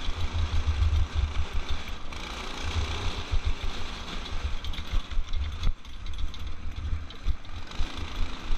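Off-road go-kart's small engine running at speed, driving through a torque converter, with wind buffeting the microphone in uneven gusts. A few sharp knocks come about five to six seconds in.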